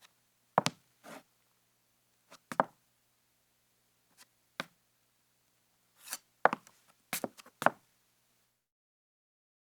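Women's high-heeled shoes stepping on a wooden floor: sharp heel clicks, some single and some in quick pairs or short runs, at uneven spacing. The steps stop more than a second before the end.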